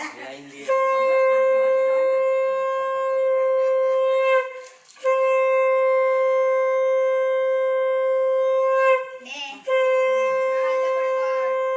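Conch shell (shankha) blown in three long, steady blasts of three to four seconds each, with short breaks for breath between them, as is done to mark the Bhai Phonta ritual.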